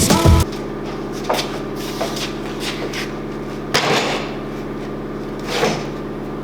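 A workshop machine's motor running with a steady hum, with a few light knocks and two louder noisy swishes about four and five and a half seconds in.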